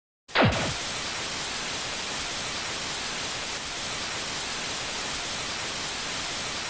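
TV-style static: a steady hiss of white noise that cuts in about a third of a second in with a brief falling swoop of tone.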